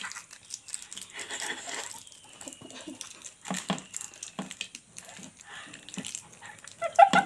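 Children's breathing, snuffling and mouth noises as they pick up small wrapped snacks from plates with their mouths, irregular and breathy, with light scrapes and wrapper rustles. A short, louder vocal sound about seven seconds in.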